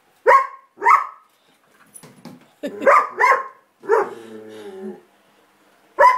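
German shepherd barking at an electric pedestal fan it is seeing for the first time: six short, sharp barks, mostly in quick pairs with pauses between.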